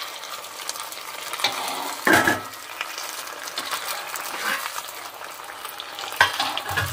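Aloo bread roll deep-frying in hot oil in an iron kadhai: a steady sizzling hiss while a slotted spoon stirs and turns the roll. The spoon knocks against the pan about two seconds in and again near the end.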